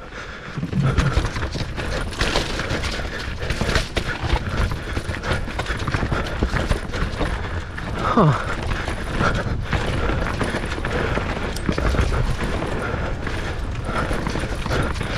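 Mountain bike descending a rough dirt trail at speed: steady tyre and wind rumble with constant rattling and knocking from the bike over roots and rocks. A short falling tone sounds about eight seconds in.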